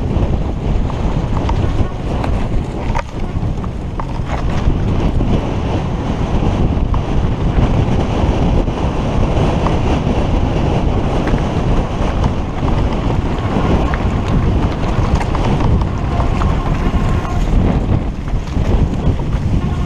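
Rushing wind buffeting a helmet-mounted camera's microphone as a mountain bike descends at speed, with tyres on dirt and rock and occasional brief knocks and rattles from the bike over rough ground.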